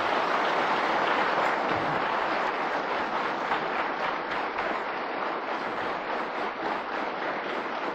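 Applause from a seated assembly of deputies, many people clapping together, loudest at the start and slowly dying down.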